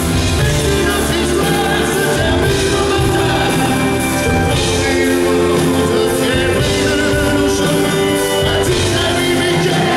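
Live band music: a man singing lead into a microphone over acoustic guitar and drums in a slow pop-rock ballad.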